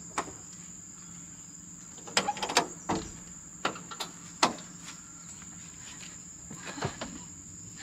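Rear side-hinged doors of a Toyota Land Cruiser 70-series being unlatched and swung open: a string of metallic clicks and knocks from the latches and hinges, the right door carrying the spare tyre, then a bump as someone climbs into the cargo floor near the end. A steady high drone of crickets runs underneath.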